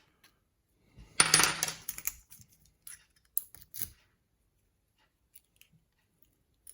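Small metal pieces clattering and clinking against a hard surface for about a second, followed by a few sharp metallic clicks.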